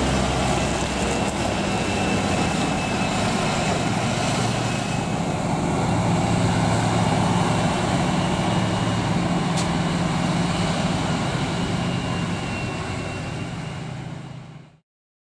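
Krone Big X 700 forage harvester running under load while chopping maize: a steady, dense engine drone with the rush of the chopper and crop flow. It fades out near the end.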